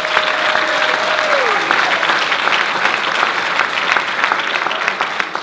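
Audience and cast clapping. A single voice gives one long held whoop that drops away about a second and a half in. The clapping tails off near the end.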